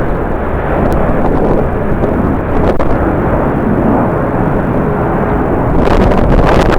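Jet airliner engines running loud, mixed with strong wind buffeting the microphone. The rushing noise swells briefly near the end.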